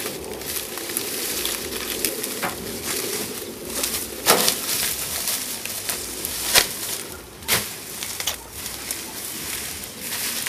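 Cut sugarcane being loaded onto a truck by hand: a steady rustling hiss with four sharp knocks as armfuls of stalks land on the load, the loudest about four seconds in.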